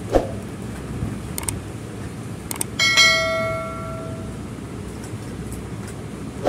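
A couple of quick clicks, then a bright bell-like notification chime about three seconds in that rings and fades over a second or so: the sound effect of a subscribe-button animation. A short sharp sound comes just after the start and again at the very end.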